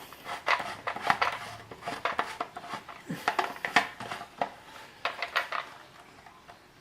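Plastic clicks and knocks as the cap of an ultrasonic humidifier's water tank is screwed back on and the tank is handled, irregular, dying down near the end.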